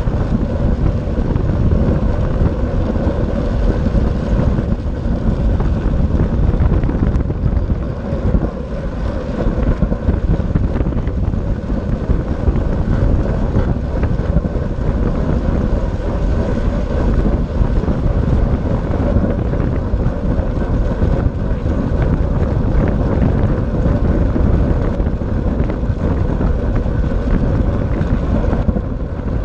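Wind rushing over the microphone of a camera riding on a track bicycle at racing speed, with a steady hum from the bike's wheels on the wooden velodrome boards.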